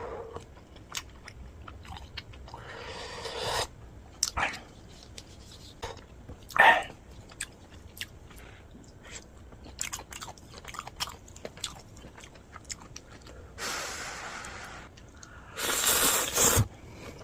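Close-miked eating of spicy Neoguri cup ramen noodles: wet chewing and mouth clicks throughout, with a few longer, louder slurps, the loudest near the end.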